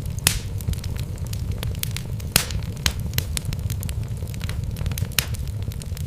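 Wood fire in a fireplace crackling, with many irregular sharp pops, two louder ones near the start and about two and a half seconds in, over a steady low rumble.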